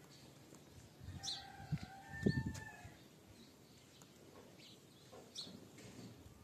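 Small birds chirping in short high calls, with a drawn-out animal call about a second and a half in and a few low thumps around it.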